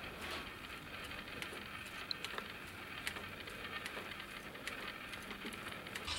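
Woven straw baskets being handled, the wicker crackling and creaking with scattered small clicks over a faint rustle.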